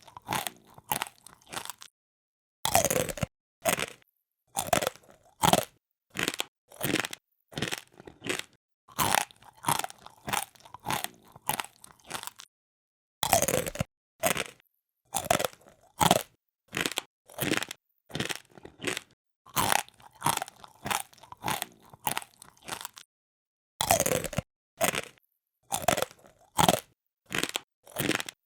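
Close-up of a person munching crunchy food: crisp crunches at about two a second, in runs broken by three short pauses, each pause ending in a sharper bite.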